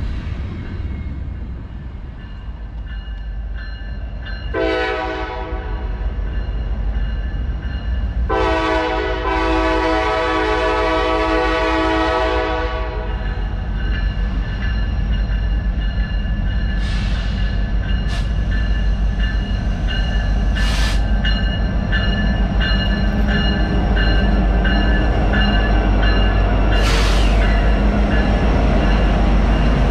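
Freight train rolling by, loaded coal hopper cars rumbling on the rails, then a diesel locomotive's air horn sounds a short blast and a long one of about five seconds. Near the end the rumble grows louder as Norfolk Southern diesel locomotives pass close.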